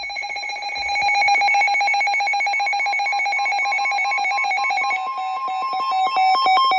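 Emergency alert attention tone announcing a tornado warning: a loud, rapidly pulsing electronic trill, which about five seconds in changes to two pitches alternating quickly.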